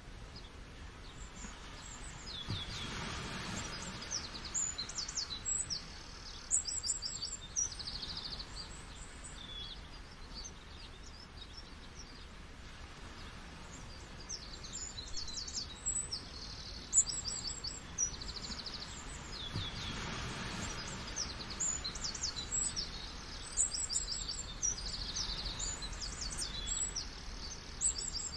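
Many small birds chirping and trilling in quick, high-pitched calls over a steady rush of falling water. The rush swells briefly about three seconds in and again around twenty seconds.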